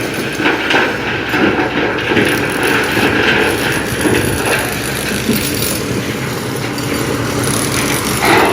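Heavy diesel dump truck engine running steadily, with mechanical rattling over it.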